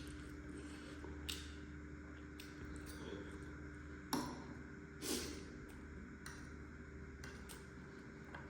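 Eating sounds from spicy noodles and eggs: quiet chewing with a few short clicks and knocks, the sharpest about four seconds in and a brief noisy slurp-like burst a second later, over a faint steady hum.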